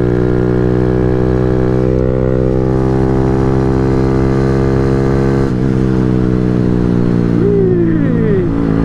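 The 141 cc big-bore single-cylinder engine of a Grom clone minibike runs with a steady drone at cruising speed, with wind rush over the helmet camera. The note breaks briefly about halfway through, then carries on a little lower.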